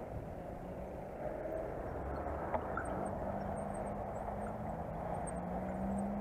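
Bicycle rolling along a dirt path: a steady rumble of tyres on dirt and wind on the handlebar-mounted camera, with a faint steady hum joining about three seconds in.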